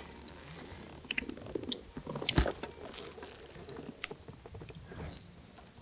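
Quiet, irregular small clicks, knocks and light water noise as a big largemouth bass is grabbed by hand at the side of a bass boat, with one louder thump about two and a half seconds in.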